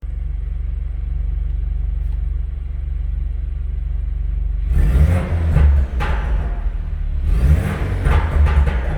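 BMW 428i's N26 2.0-litre turbocharged four-cylinder idling with a steady exhaust rumble, then revved in blips from about five seconds in, with crackles and pops from the exhaust as the revs drop. The popping comes from a Stage 2 pop-and-bang exhaust map.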